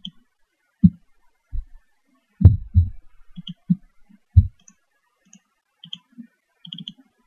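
Computer mouse clicking: an irregular series of short clicks, some in quick pairs, the loudest about two and a half seconds in.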